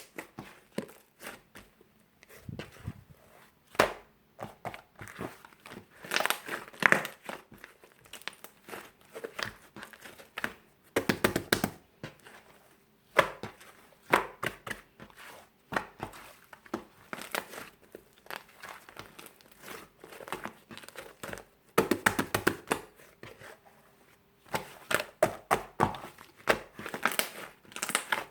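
Paper and tape crinkling and tearing in irregular bursts as a handmade paper cake toy is handled, with several louder flurries of rustling.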